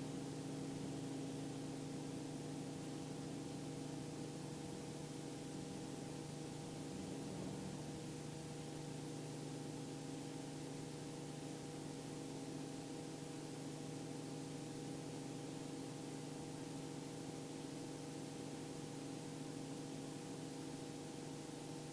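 Faint, steady hum of a Robinson R44 II helicopter, a few unchanging tones over a light hiss.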